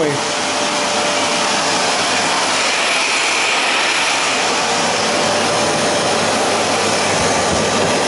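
Samsung SC4520 vacuum cleaner running steadily: an even rushing of motor and airflow with a faint whine, noticeable but not very loud.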